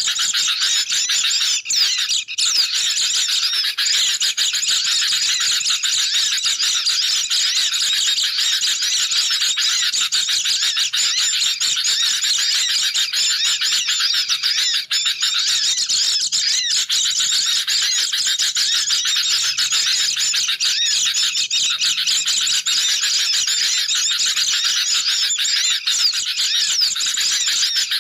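A dense, unbroken chorus of many birds chirping and twittering over one another: a bird-lure recording of sooty-headed bulbuls and white-eyes calling excitedly.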